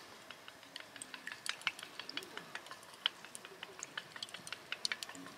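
Wooden chopsticks beating a raw egg in a small stainless steel bowl, clicking irregularly against the metal several times a second.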